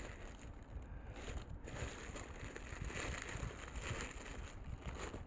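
Thin plastic bag rustling and crinkling as it is handled and squeezed, in irregular bursts that are loudest in the middle.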